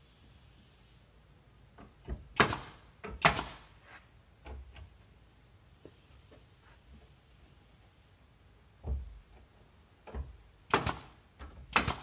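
Pneumatic nailer firing nails into wooden board siding: two sharp shots about a second apart, a long pause, then two more near the end, with a few softer knocks in between.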